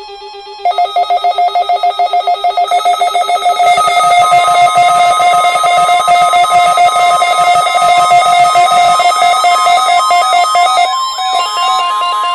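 Loud warbling electronic alert tones, pulsing rapidly at first. From about four seconds in, a steady NOAA Weather Radio 1050 Hz warning alarm tone is held under them, stopping near the end; it is sounded as part of the weekly test.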